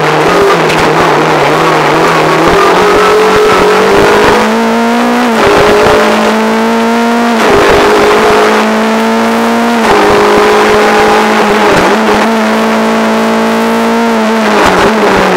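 Renault Clio R3's two-litre four-cylinder engine heard from inside the car, running hard at high revs, its pitch stepping at quick gear changes about every two to three seconds.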